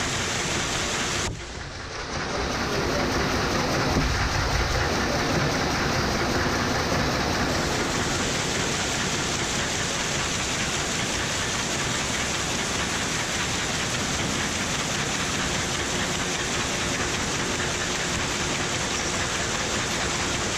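Massman Talon Supra microwave popcorn bag-making machine running, a steady, even mechanical noise. It drops briefly about a second in, then resumes with a low thud.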